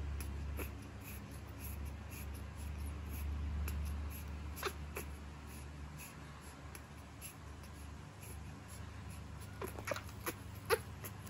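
Baby monkey giving a few short, sharp squeaks: one about five seconds in and three close together near the end, over a steady low hum.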